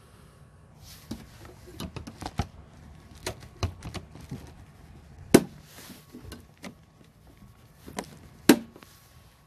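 Plastic wrapping crinkling as hands handle a wrapped street-light fixture, with scattered small clicks and knocks against its housing. Two sharper knocks stand out, about five seconds in and near the end.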